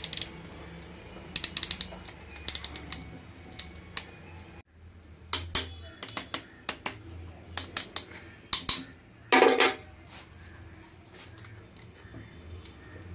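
Sharp metal clicks and taps in short clusters as a piston in a ring compressor is fitted into the engine block, with a louder clank about nine and a half seconds in.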